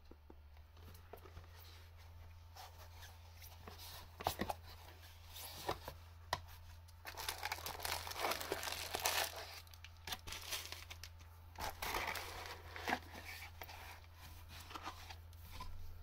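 Unpacking a cardboard box of plastic-bagged parts: scattered taps and clicks, then the crinkling of plastic bags and rustling of paper, densest about halfway through and again a little later. A steady low hum runs underneath.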